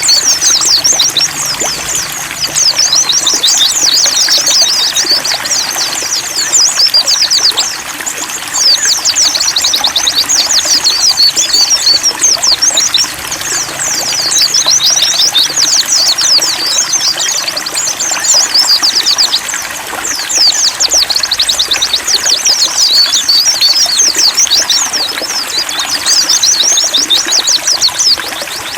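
White-eyes (pleci) singing a rapid, high-pitched, continuous twittering song with a few short lulls, over a steady trickle of running water.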